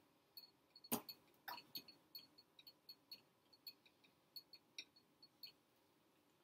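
Near silence with faint, irregular high ticks, several a second, and one louder click about a second in; the ticks stop near the end.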